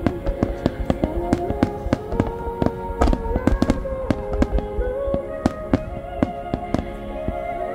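Fireworks shells bursting in quick succession, several sharp bangs a second. Under them runs music with long held notes that step slowly from pitch to pitch.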